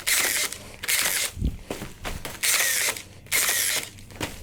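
A rebar tying tool twisting wire ties onto steel reinforcing mesh in four short whirring bursts, about a second apart.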